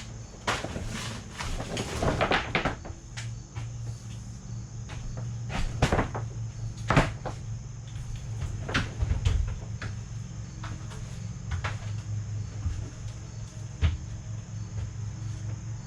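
Irregular wooden knocks and clatter from timber-framing work, over a steady low hum.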